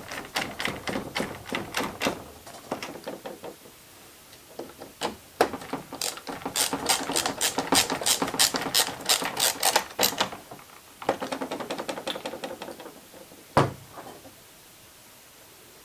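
Runs of fast mechanical clicking, several clicks a second, in bursts with short pauses between them, then a single sharp knock near the end.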